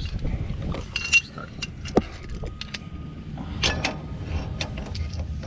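Steel wrenches and bolts clinking and knocking against the differential's pinion flange while working on the driveshaft mounting, with two sharp metallic knocks about one and two seconds in.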